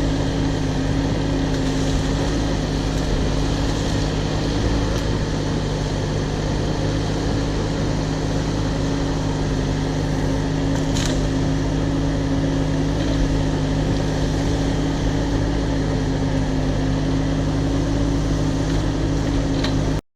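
Cat 304 mini excavator's diesel engine running steadily under work, with a few short clicks.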